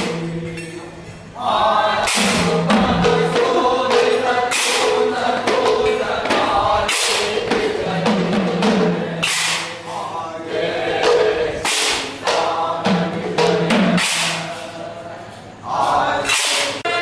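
Barrel drums beaten by dancing drummers, with a chorus singing over them and sharp, bright strikes every second or so. The music dips briefly near the start and again near the end, then comes back in full.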